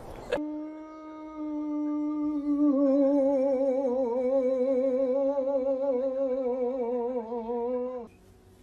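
A boxer-type dog howling: one long, steady howl that starts about half a second in, sinks slightly in pitch and begins to waver after a couple of seconds, and cuts off suddenly near the end.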